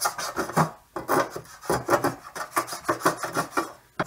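Flat hand file rasping over the sheet-metal electrical panel cover in quick repeated strokes, about three a second, filing down the burrs left where the drill bit came through.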